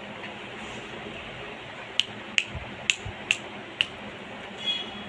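Five sharp, short clicks about two a second, starting about two seconds in, over a steady background hiss, as small hard items are handled; a brief high-pitched sound follows near the end.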